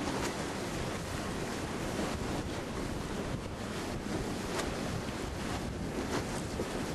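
Strong, gusty wind blowing across the microphone, with choppy waves washing against a moored shrimp boat's hull and the dock: storm wind the day after a hurricane.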